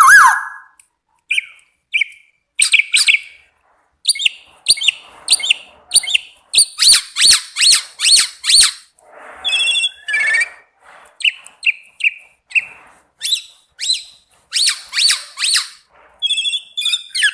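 A pet bird calling: a long run of short, sharp chirps and whistles, several a second in quick bouts, with a few harsher, buzzier notes about halfway through.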